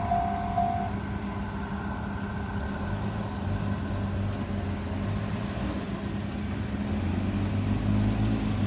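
A road vehicle's engine idling steadily, a low even hum. About a second in, a level-crossing warning tone stops.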